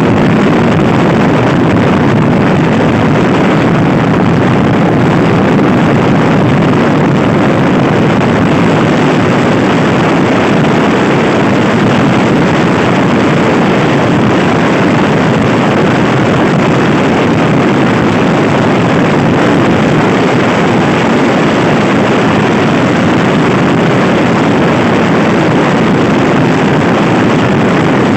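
Loud, steady wind rush over the microphone of a rider on a Honda Scoopy-i scooter at speed, with the scooter running underneath it.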